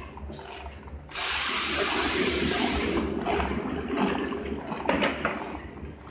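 Label die-cutting machine running, with a loud rushing hiss that starts suddenly about a second in, holds for about two seconds, then fades away over light mechanical clicks and a low hum.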